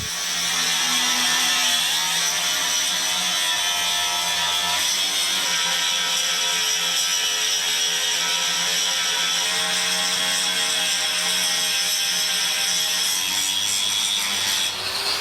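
A power tool runs steadily with a high whine, its pitch drifting slightly, while stay bolts are prepared inside a steam locomotive's steel firebox.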